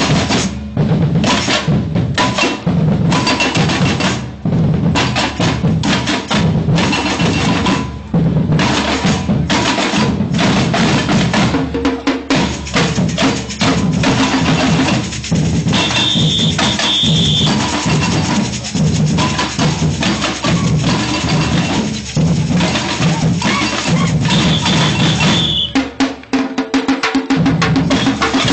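Samba-reggae batucada drumming: deep bass drums, snares and other hand percussion play a steady, driving groove. Two long high notes sound over the drums, near the middle and near the end, and the low drums drop out briefly shortly before the end.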